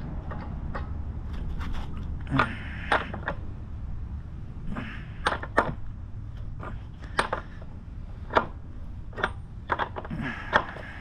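Irregular metallic clicks and clinks of hand tools at a motorcycle's rear axle, a socket and breaker bar being fitted and worked to break the 32 mm axle nut loose, over a low steady rumble.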